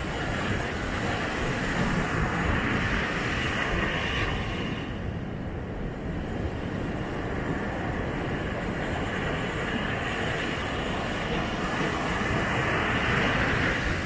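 Ocean surf breaking and washing up the beach, with wind. The hissing wash swells in the first few seconds and again near the end, over a steady low rumble.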